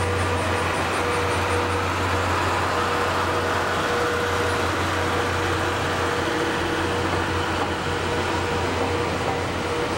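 Passenger coaches of a train hauled by a DE10 diesel locomotive rolling past, making a steady rumble of wheels on rails over a low hum.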